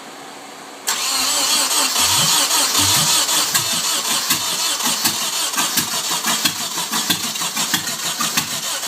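Nissan KA24DE four-cylinder engine being cranked by its starter for about eight seconds, a loud uneven pulsing that starts suddenly about a second in. This is an engine that won't start, though the owner says it has spark, fuel and correct timing.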